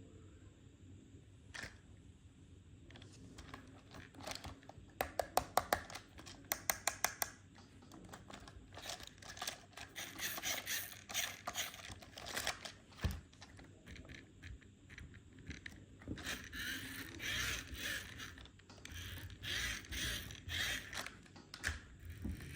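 Plastic and cardboard toy packaging being torn open and crinkled by hand. There are two quick runs of sharp clicks a few seconds in, then long stretches of crackling and rustling.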